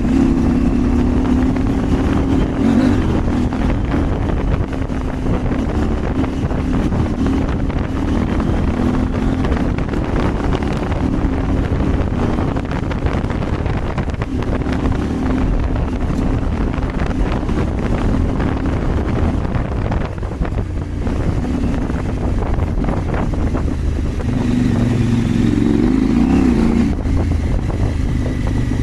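Adventure motorcycle's parallel-twin engine running under way off-road, its pitch rising and falling with the throttle, with wind buffeting the microphone.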